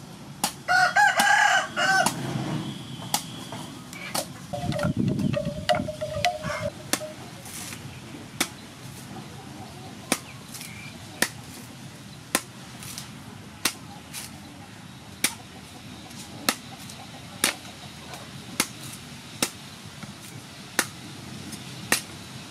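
Cleaver chopping into the husk of a green coconut on a wooden board, one sharp chop roughly every second. A rooster crows loudly about half a second in, and a chicken calls again, lower, about five seconds in.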